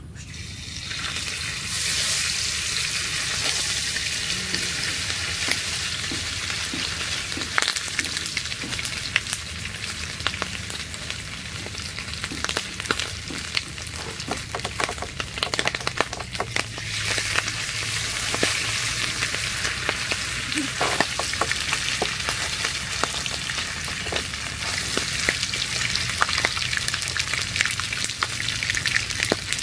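Pieces of catfish frying in hot oil in a wok: a loud, steady sizzle full of crackling pops. It flares up as the fish goes into the pan, with occasional taps of a wooden spatula.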